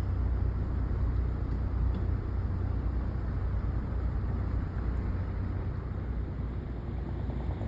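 Steady low vehicle rumble, strongest in the bass and even throughout, with no distinct events.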